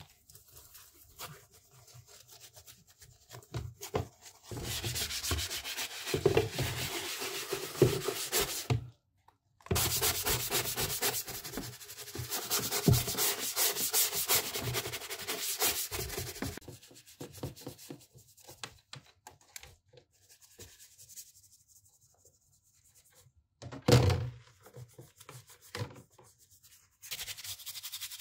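Scrubbing of soapy plastic laptop case parts with a sponge and brush: long stretches of scratchy rubbing with quieter pauses between them. A single sharp knock stands out in a quiet stretch near the end.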